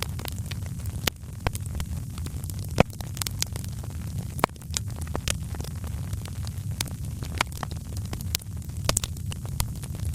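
Wood fire in a fireplace crackling, with irregular sharp pops over a steady low rumble; the loudest pops come about three seconds and four and a half seconds in.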